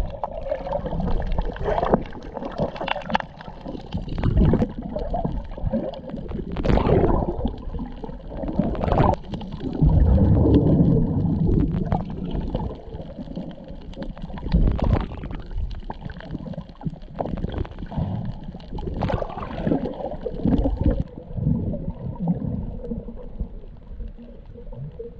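Underwater recording: muffled bubbling and gurgling of divers' exhaled air and water moving around the camera, with irregular low rumbles and a few sharp ticks.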